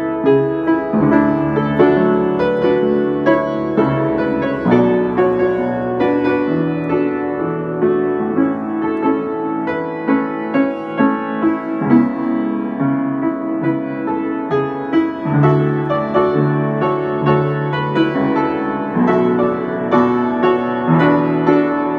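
Upright piano playing a hymn tune solo, chords and melody struck in a steady, unhurried rhythm.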